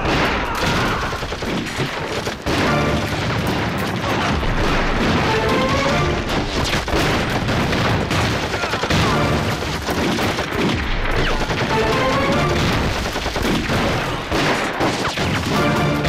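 Battle sound effects: dense rifle and machine-gun fire with explosions, mixed under background music.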